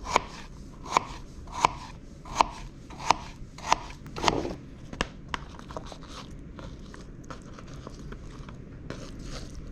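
Knife chopping a cucumber on a cutting board: about seven crisp, evenly paced chops over the first five seconds, then lighter clicks and scrapes.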